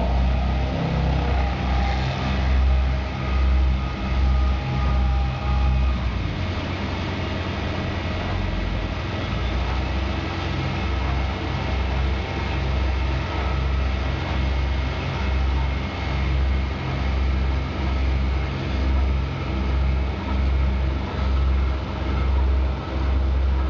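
Heavy construction machine running steadily, a low engine drone that throbs regularly, about one and a half pulses a second.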